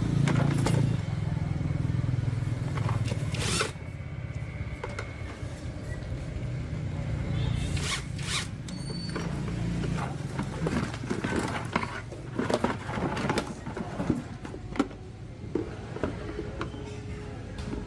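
Repeated short scraping strokes, irregular and coming faster in the second half, over a steady low hum.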